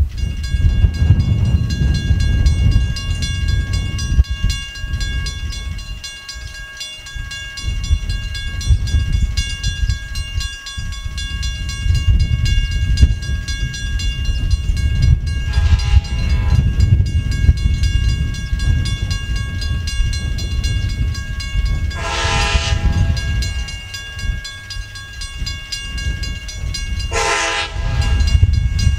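Mechanical railroad crossing bell ringing steadily as the crossing is active, while an approaching train's horn sounds three blasts: one past halfway, one about six seconds later and one near the end, each louder than the last.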